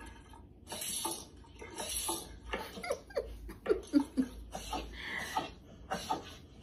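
Laughter: short breathy, hissing bursts of it, with a few pitched cries sliding down in pitch around the middle.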